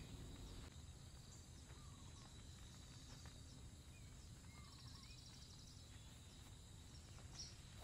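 Near silence: a faint outdoor ambience with a low steady rumble and a few short, faint bird chirps, including a brief rapid trill about five seconds in.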